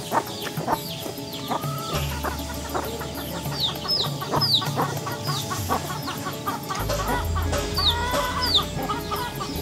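Domestic chickens clucking, over steady background music.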